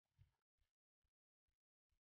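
Near silence, with faint short soft ticks about twice a second.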